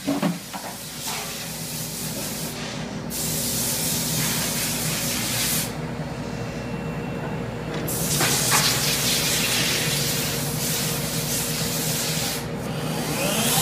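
Zahoransky ET120 brush drilling and filling machine running: a steady mechanical hum under a loud hiss. The hiss breaks off briefly about three seconds in, drops out for a couple of seconds midway, and fades near the end as a whine rises in pitch.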